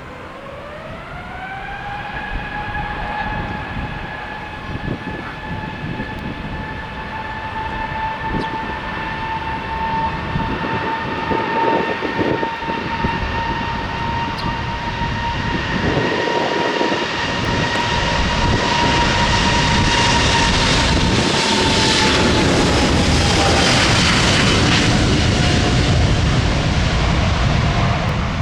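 Jet airliner's engines: a whine climbs in pitch in the first couple of seconds, as when thrust is set for takeoff, then holds steady while the engine roar grows steadily louder and peaks near the end as the aircraft passes, the whine dropping slightly in pitch.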